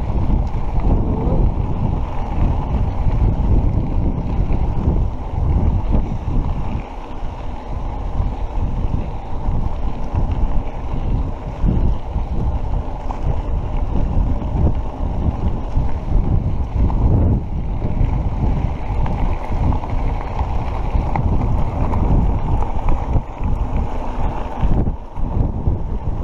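Wind buffeting an action camera's microphone on a mountain bike riding a rough dirt road, with knobby-tyre rumble and frequent small jolts from the surface. The noise is low and heavy and swells and dips unevenly.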